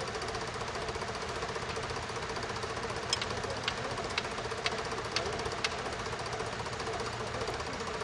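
Massey Ferguson 135 tractor's engine running steadily under load as it pulls a plough. About three seconds in there is a string of six sharp clicks, roughly half a second apart.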